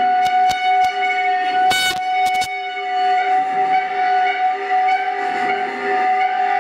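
Amplified bowed metal: a tall metal strip is bowed, giving a loud steady high drone with overtones. A few sharp clicks and a short scraping burst come about two seconds in.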